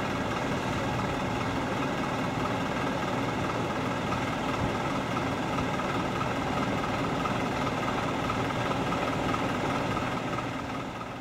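A steady mechanical hum with several held tones over it, easing off slightly near the end.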